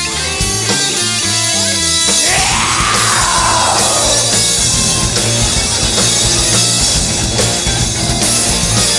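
Live rock band playing heavy, distorted rock: electric guitars, bass and drum kit. About two seconds in, a loud swooping note rises and falls over the band.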